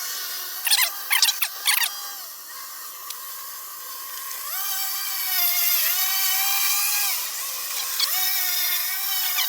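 Remote-control lawn mower running with a high, drill-like whine that rises in pitch twice, about halfway through and again near the end. A few brief loud rasping bursts come about a second in.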